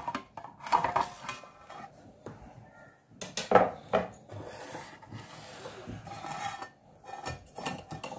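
Stainless steel kitchenware being handled on a counter: a steel plate and a spoon in a bowl clattering and clinking in several separate bursts, the loudest about three and a half seconds in.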